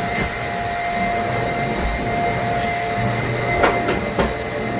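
Vacuum cleaner motor running steadily with a constant whine, with two sharp knocks near the end.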